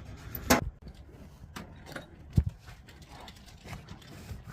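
A few separate knocks and clicks, one sharp click about half a second in and the loudest a dull thump about two and a half seconds in.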